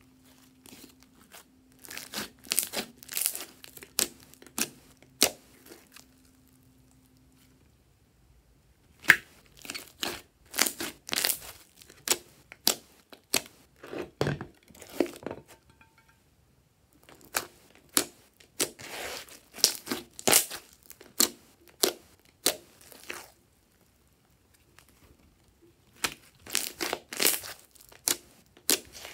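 Thick glossy slime being stretched, squeezed and pressed by hand, giving sticky crackling and popping in clusters, with a few short pauses between handlings.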